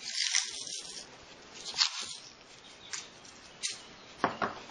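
Short, irregular rustles and scrapes of hands handling a cotton-wrapped coil bound with tape.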